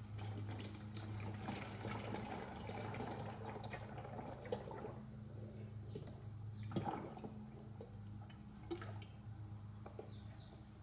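Used engine oil being poured from a drain pan into a storage container: a steady pour for about the first five seconds, then a few knocks as the pan and container are handled.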